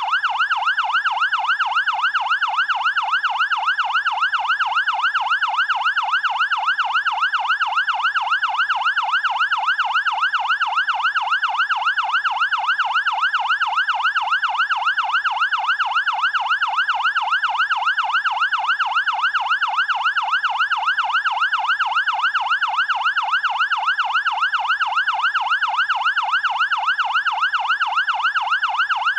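Fire department siren in a fast yelp, its electronic tone sweeping up and down about two to three times a second, steady and unchanging.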